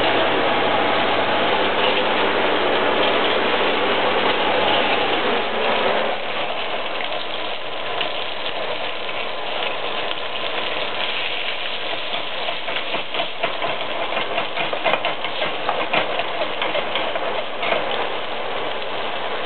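Pork frying in hot oil in a pan: a steady sizzle, with rapid irregular crackling spatters from about six seconds in.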